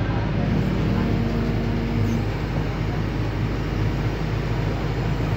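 Heavy crawler excavator's diesel engine running steadily, a deep continuous rumble, with a faint higher steady tone held for about a second and a half near the start.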